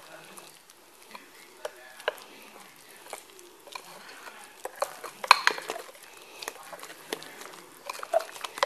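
A metal utensil stirring thick muffin batter in a glass bowl, with irregular clinks and scrapes against the glass. A cluster of louder knocks comes about five seconds in and again near the end.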